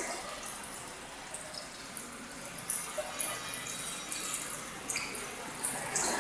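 Aquarium water trickling and splashing steadily, with small irregular splashes and drips throughout.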